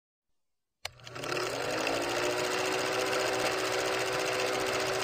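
Film projector sound effect: a click about a second in, then a steady fast mechanical clatter with a whir that rises briefly as it comes up to speed.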